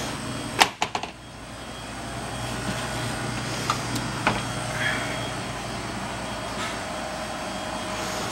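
Refrigeration unit of a commercial refrigerated pizza prep table running with a steady hum. A cluster of sharp clicks and knocks comes a little over half a second to a second in, with a few lighter ticks later.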